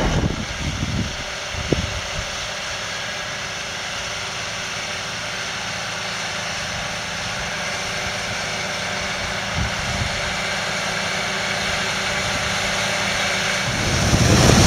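Large John Deere row-crop tractor's engine running steadily as it pulls a disc cultivator across a field. There are a couple of brief knocks, and near the end a louder, deeper machine sound cuts in.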